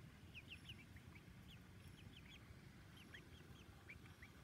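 Young silkie chickens peeping softly: short, quick high peeps, several a second, over a faint low rumble.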